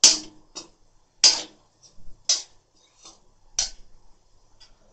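A metal spoon scraping and knocking against a metal kadai while stirring shredded cabbage and vegetables: a series of sharp scrapes, the loudest about one a second.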